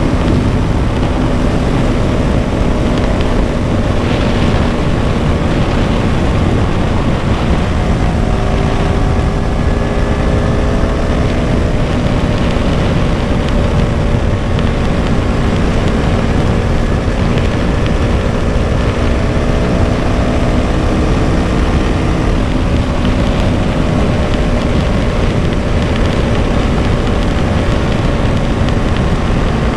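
KTM Duke 200's single-cylinder four-stroke engine running under way at fairly steady revs, its pitch rising and falling slightly, over a steady low rush of noise.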